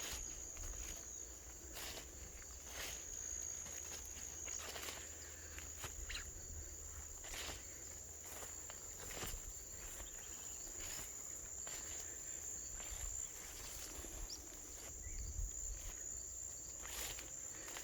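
Insects trilling: one steady, high-pitched tone that holds without a break. Faint footsteps through the vegetation come about every second.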